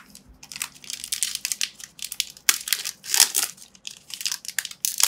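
Foil Pokémon booster pack wrapper crinkling as it is handled and torn open: a dense run of sharp, irregular crackles, loudest about three seconds in.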